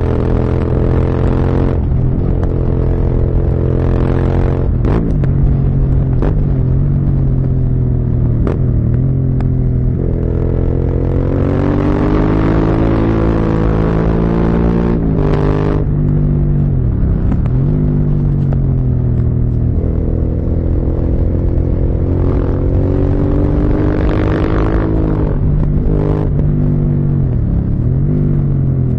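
Motorcycle engine heard onboard while riding, the revs climbing and falling again and again as the rider accelerates, shifts gears and rolls off, with short breaks in the sound at the gear changes.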